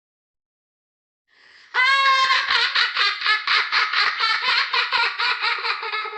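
A child laughing. After a silent start, a long run of high, quick pulsing laughter begins a little under two seconds in.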